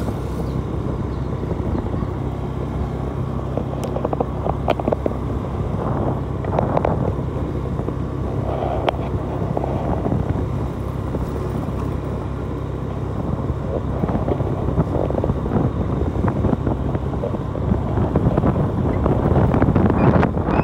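Motorcycle engine running steadily while riding, with wind noise on the microphone; it grows somewhat louder over the last few seconds.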